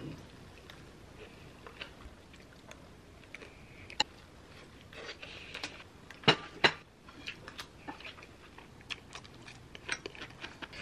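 Mukbang eating sounds, sped up: chewing omurice and kimchi, with a metal spoon and fork clicking against a ceramic plate and bowl. Scattered small clicks, with two loud sharp clinks a little past the middle.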